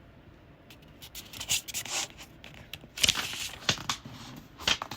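Pages of a picture book being handled and turned: a run of crisp paper rustles and swishes starting about a second in, with a longer swish around the middle.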